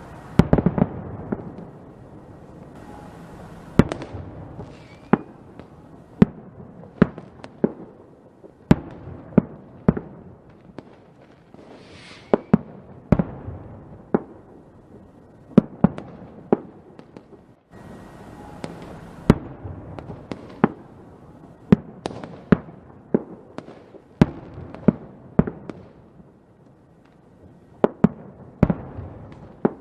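Fireworks exploding: many sharp bangs at irregular intervals, often two or three in quick succession, with crackling between them.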